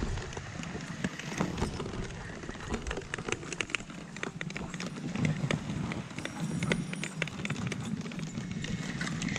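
A husky-drawn dog sled running over a snowy trail: a steady hiss and crunch of the runners, with many irregular clicks and knocks from the moving sled and the dogs' feet. A low rumble of wind on the microphone runs underneath.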